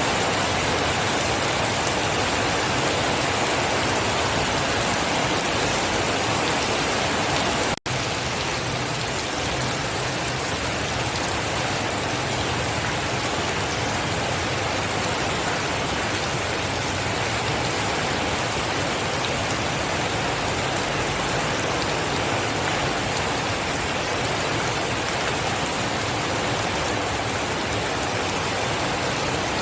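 Steady rain, an even hiss of falling drops with no thunder. It cuts out for an instant about eight seconds in, then carries on slightly softer.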